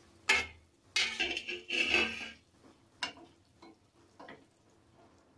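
Wooden spatula stirring a cooked tomato-onion masala in a non-stick pan: a few scrapes and knocks against the pan in the first two seconds or so, then lighter occasional taps.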